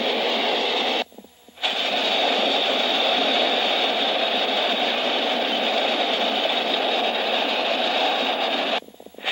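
Freight train cars rolling past on the rails: a steady rolling rumble in the thin, lo-fi live sound of old film. The sound cuts out for about half a second roughly a second in, and again near the end, where the film cuts between shots.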